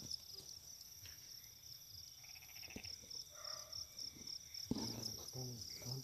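Field crickets chirping steadily, a dense chorus of rapid high-pitched pulses. A low voice murmurs briefly near the end.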